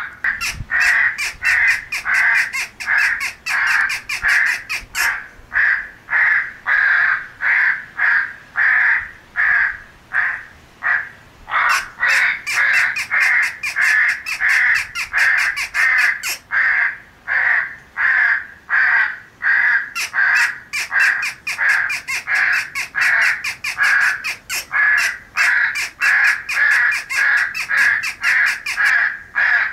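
Crows cawing over and over, a steady run of harsh caws at about two or three a second with no pause.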